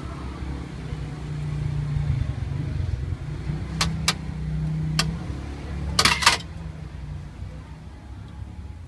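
Low engine rumble of a motor vehicle, swelling and easing, under a few sharp clinks of metal utensils on stainless steel bowls and pans, with a louder rattle of clinks about six seconds in.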